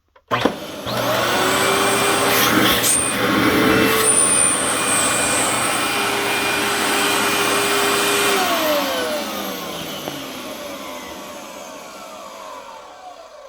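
Dirt Devil Pro Series Can Vac Plus canister vacuum switched on with a click, its motor spinning up within a second and running steadily for about eight seconds. It is then switched off and the motor winds down slowly, its pitch falling over about five seconds. This is the first run of a new, unused machine, and the owner calls the wind-down a bit long but not concerning.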